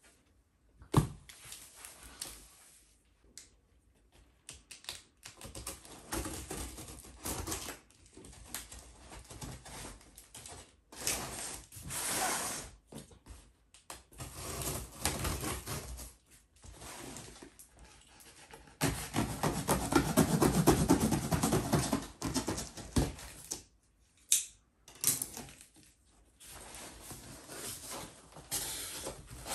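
Scissors cutting through packing tape on a cardboard box, then the box being handled and its flaps opened: a run of irregular scraping, rustling and clicking noises, with a longer, louder stretch about two-thirds of the way through.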